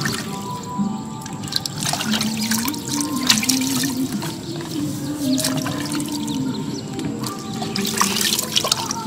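Water splashing and dripping as a plucked bird carcass is washed by hand in an earthen pot of water. Water pours and drips back into the pot as the carcass is lifted out near the end.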